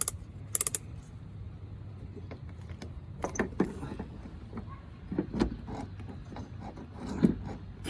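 Cordless drill on a low torque setting driving a 10 mm bolt into the brake light mount, with two short bursts of rapid clicking in the first second, then scattered clicks and knocks.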